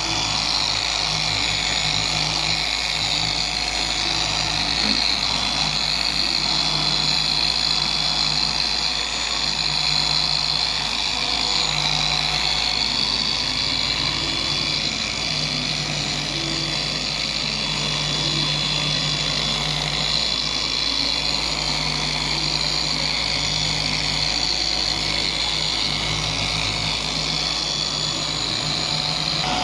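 Dual-action orbital sander running steadily on wet car paint, machine wet sanding: a steady motor whine over the rasp of the pad.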